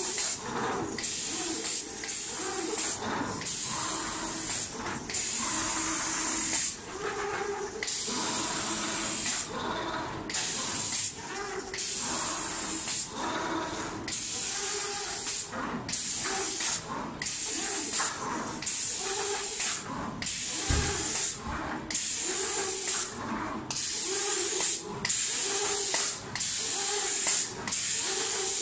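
Spray gun of an automatic cabinet-door painting machine spraying in short hissing bursts that start and stop about once a second as the gun head sweeps over the doors.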